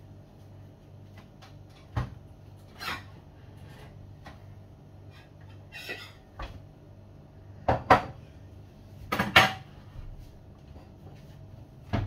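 A kitchen wall cupboard being opened and bowls and plates taken from its shelves: a few sharp knocks, then dishes clinking and clattering against each other, with two loud clatters in the second half.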